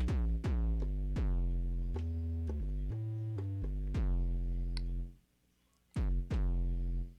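Native Instruments Massive X software synthesizer preset played as a phrase of deep, punchy bass notes at several pitches. Each note starts with a sharp attack and a quick downward pitch drop, then holds. The notes stop about five seconds in, and two more come near the end.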